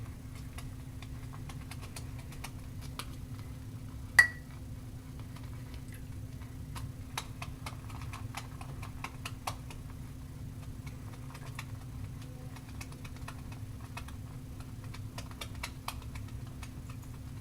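Shaving brush bristles swirling lightly over a tallow shaving soap in a bowl, loading the brush: faint, irregular scratchy ticking, with one sharper click about four seconds in. A steady low hum lies underneath.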